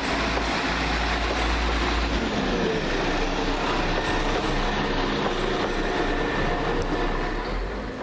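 West Midlands Railway Class 172 Turbostar diesel multiple unit departing under power and running past, its underfloor diesel engines running steadily. The engine note falls about two seconds in, and the sound falls away near the end as the train draws off.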